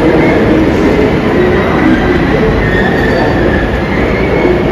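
Suburban electric train running on the rails: a loud, steady rumble with faint high-pitched wheel squeal over it.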